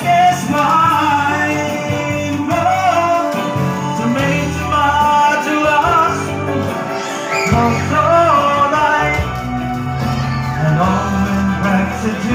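A man singing a song into a microphone, his voice amplified over recorded backing music.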